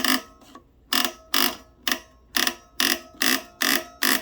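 Sharp metallic clicks, about two a second, with a slight ring, from the Sears Kenmore 36149 monogrammer attachment being worked by hand as its lettering template is pushed in and set. The clicks come faster near the end.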